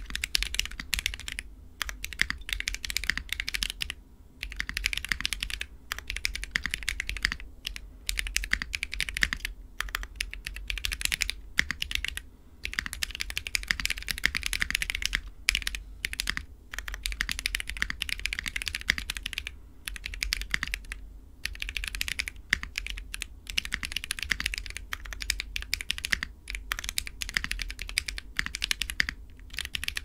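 Fast, continuous typing on a custom Fjell mechanical keyboard with Holy Panda tactile switches lubed with 3203, a full brass plate, shelf-liner foam and GMK Space Cadet keycaps. The keystrokes come in quick runs with short pauses between them.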